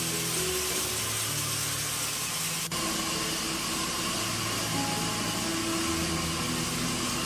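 Steady mechanical whirring noise with a hiss, under background music with short held notes; the sound changes abruptly a little under three seconds in.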